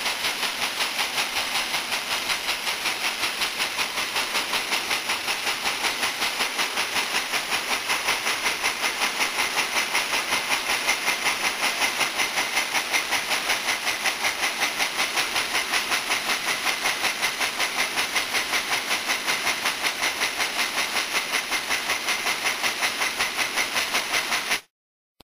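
Multi-needle quilting machine running at a steady speed, its sewing head and needle bars making a rapid, even, hissing clatter. The sound drops out for a moment near the end.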